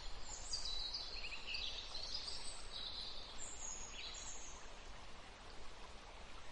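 Small birds chirping and trilling in high, short calls over a steady background hiss; the calls stop about two-thirds of the way through.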